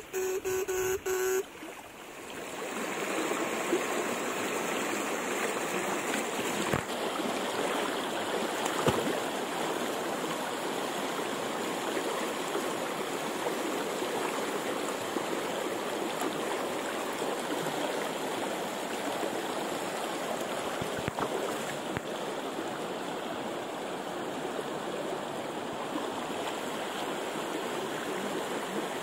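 Shallow river rushing steadily over rocks, with a few faint knocks. At the very start a short pulsing electric buzz cuts off about a second and a half in.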